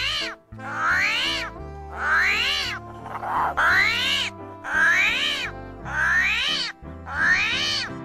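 Repeated squealing call, offered as a pangolin's voice, each one rising then falling in pitch, about one a second, over background music with a low sustained bass.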